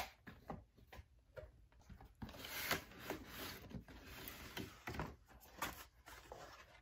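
Cardboard shipping box being handled and opened: flaps lifted and rubbing, and a boxed laptop sliding out, with scattered light knocks and scraping.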